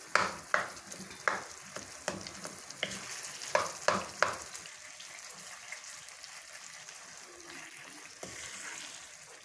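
Wooden spoon stirring mashed potato curry in a wok, scraping strokes against the pan about twice a second that are loudest over the first four seconds, over a steady sizzle of the masala frying.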